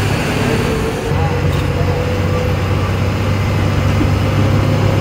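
Bus engine and tyre noise heard from inside the driver's cabin while cruising on the highway: a steady low drone with a constant hum above it.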